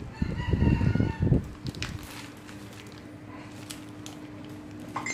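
A rooster crows once, about a second long, near the start. Crinkling and light clicks of plastic packaging being handled follow.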